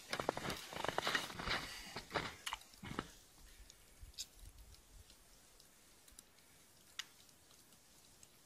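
Boots crunching through fresh snow in irregular footsteps for about three seconds, then quiet with a few faint clicks.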